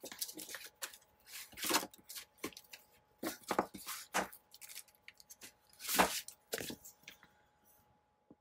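Paper and journal pages being handled: a string of short, scraping rustles, the loudest about six seconds in.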